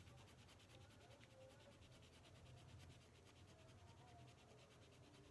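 Faint, quick scratching: a scissors blade scraping the coating off a scratch-off card.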